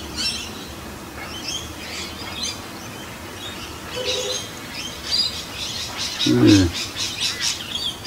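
Several birds chirping and calling, with a quick run of rapidly repeated notes in the last few seconds. A brief low voice sounds once, a little past the middle.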